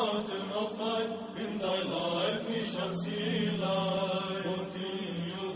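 Orthodox Byzantine-style chant: voices singing long, drawn-out melismatic notes over a steady held drone.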